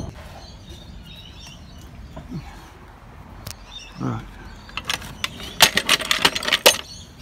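A steel floor jack being slid and set in place under the car, giving a quick run of sharp knocks and clicks in the second half. Faint bird chirps sound in the background.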